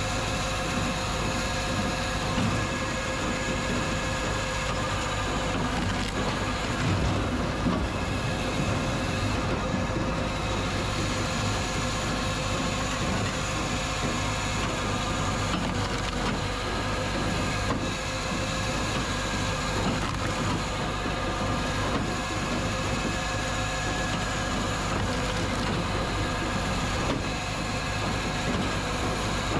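Tractor-driven firewood processor running steadily: a continuous machine drone with a whine of several steady tones, and irregular knocks and clatter from logs and split wood.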